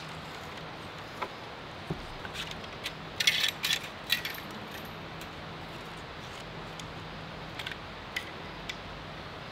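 Sharp metallic clicks and rattles of hand tools being handled, scattered through, with a dense flurry about three seconds in.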